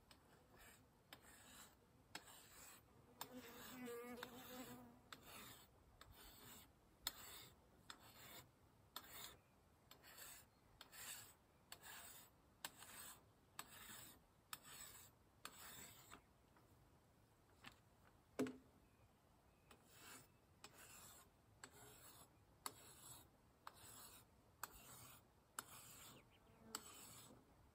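Faint, rhythmic rasping strokes of a hand tool working wood, about one and a half strokes a second, with a single sharp knock about two-thirds of the way through.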